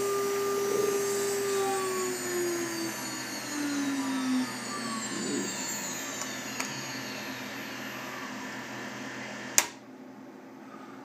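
Water-cooled CNC router spindle whining steadily, then winding down in a falling pitch until it fades out. About nine and a half seconds in, a sharp click of the pump switch, and the coolant pump's hum cuts off.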